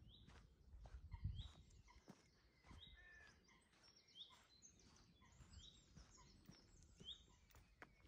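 Faint birdsong, one bird repeating a short, high, slightly falling call about every second and a half, over soft footsteps on a path. There is a low thump about a second in.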